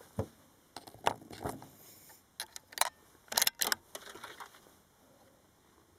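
Irregular sharp metallic clicks and light rattles of rifle and shooting gear being handled, several in quick clusters, dying away after about four and a half seconds.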